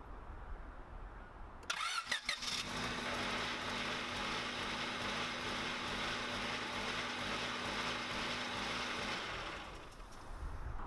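Honda Civic D16Y7 engine being started: about two seconds in, the starter engages with short rising whines and a few clacks. The engine then turns over and runs steadily for about seven seconds before shutting off and fading away.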